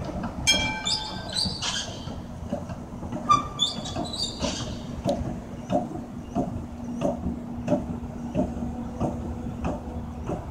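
A-class tram passing close by. Its steel wheels squeal on the curve twice in the first five seconds, each squeal a high ringing tone lasting about a second. Then the wheels clack evenly over the rail joints, about three clacks every two seconds, over a steady low hum.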